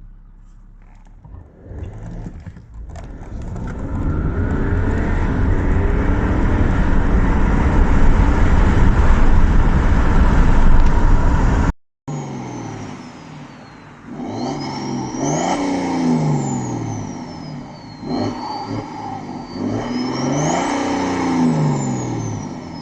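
BMW 535d's twin-turbo three-litre straight-six diesel, with its particulate filter deleted, accelerating hard, a loud rush of engine noise building for several seconds. After an abrupt cut the engine is revved up and back down twice, and a high turbo whistle rises and falls with the revs.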